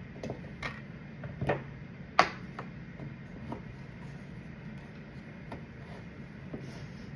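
Stirring in a beaker of flour, salt, oil and water: the stirrer knocks against the beaker's sides with scattered, irregular clicks, the loudest about two seconds in.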